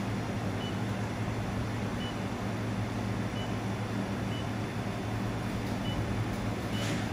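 Handheld laser welding machine running with a steady low hum and fan noise, while its touchscreen control panel gives six short high beeps as keys are pressed.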